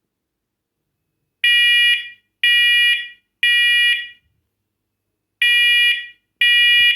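First Alert talking smoke and carbon monoxide alarm sounding during a button-press test: three loud, shrill beeps about a second apart, a pause, then the next group of three begins. This is the temporal-three pattern that signals smoke.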